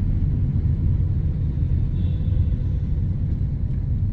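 Steady low rumble of a car in motion, heard from inside the cabin: engine and road noise as it rolls slowly along.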